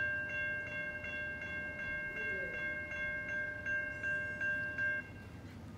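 Railroad grade-crossing warning bell ringing, struck about three times a second, then cutting off suddenly about five seconds in.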